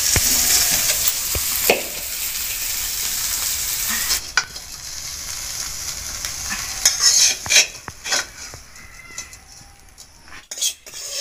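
Masala-coated small fish sizzling as they fry in oil in a metal kadai; about four seconds in the loud sizzle drops away suddenly. After that a metal spatula scrapes and clinks several times against the pan and a bowl as the crisp-fried fish are lifted out.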